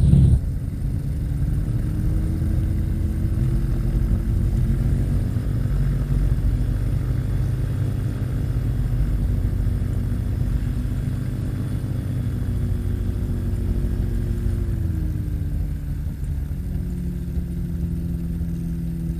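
Rotax 582 two-stroke engine of a Spectrum Beaver ultralight running throttled back on the landing approach, over heavy wind rumble on the strut-mounted microphone. The engine note drops about fifteen seconds in as the plane settles onto the runway.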